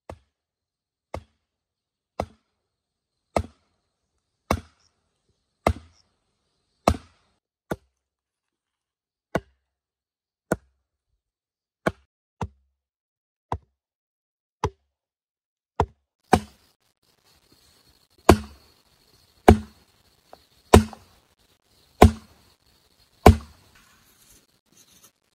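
Blows of a tool on wood or bamboo, chopping at an even pace of about one stroke a second. The last five strokes are the heaviest and deepest.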